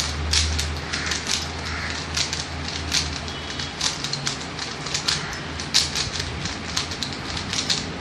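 3x3 Rubik's cube being turned quickly by hand: a rapid, irregular clatter of plastic layers clicking round, several clicks a second.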